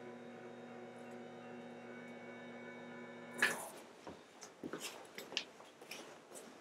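Steady electric hum that cuts off about three and a half seconds in with a sharp click, followed by soft rustling and light clicks as someone shifts on the treatment table.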